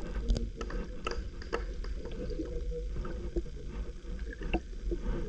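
Muffled underwater sound picked up with the camera held below the surface: a low rumble of moving water with scattered small clicks and crackles.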